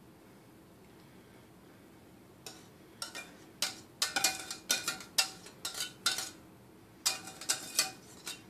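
A metal utensil scraping and clinking inside a metal saucepan in a quick run of short, ringing strokes, with a short pause before the last few. It is the last of the thick white sauce being scraped out of the pan over the enchiladas.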